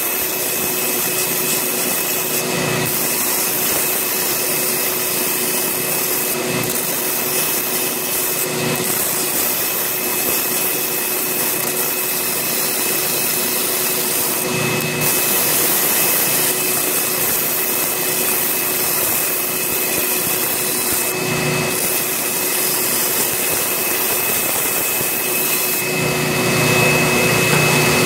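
Electric power sander running with a steady motor whine while a deer bone knife handle and its padauk spacer are pressed against the abrasive. Several short, louder grinding passes come every few seconds, the last and longest near the end.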